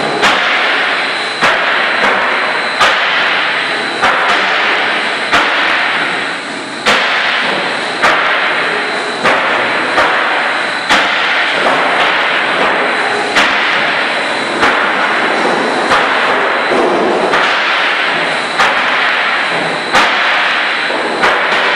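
Sheet-metal roofing production machinery running loudly: a sharp bang about every second and a third, each followed by a clattering, grinding noise that fades until the next bang, over a steady high whine.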